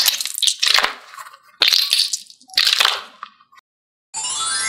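Crunchy crackling squish sounds, four in a row, as a gel-bead mesh stress ball is squeezed by hand. About four seconds in, a bright chime effect with a rising pitch starts.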